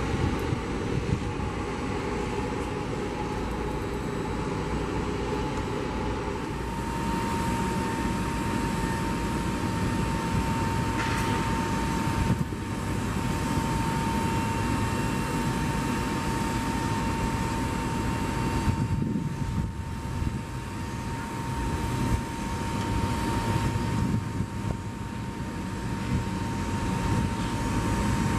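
Aircraft engine noise: a steady low rumble, joined about six seconds in by a steady high whine that holds on.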